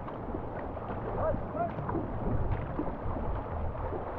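Canoe paddles stroking through river water, with water running along the hull and wind buffeting the microphone.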